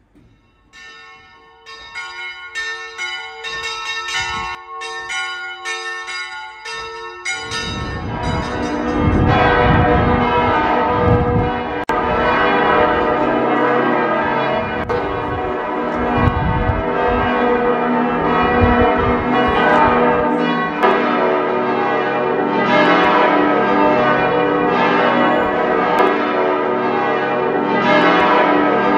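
Church bells ringing: a few separate strokes at first, then from about seven seconds in many bells ringing together, louder and dense.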